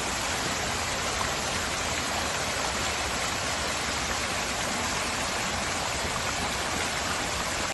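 Fountain's ring of arching water jets spraying and splashing into its shallow basin: a steady, even rush of falling water.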